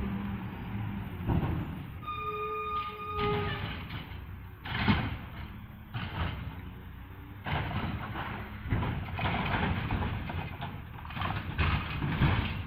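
Garbage truck at work: its engine running under repeated noisy bursts of mechanical sound, with a brief pitched tone about two seconds in.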